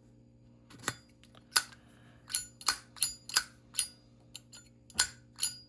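Metal Zippo lighters being handled, giving a run of about ten sharp metallic clicks and clacks, several with a brief high ring, beginning about a second in.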